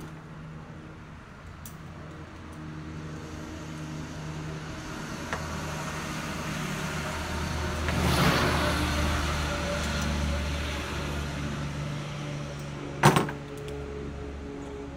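A motor vehicle going past, building for several seconds and then fading, over a steady low hum. A single sharp knock near the end, as a metal socket is set down on the car's bonnet.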